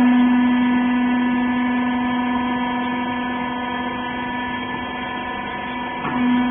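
Hydraulic baler's power unit running with a steady electric hum, easing slightly midway and strengthening again near the end after a brief knock.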